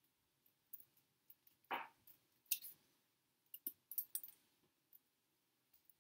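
Scissors snipping small triangles out of a folded sheet of paper for a paper snowflake: a handful of short, irregular snips and paper rustles, most of them in the middle of the stretch.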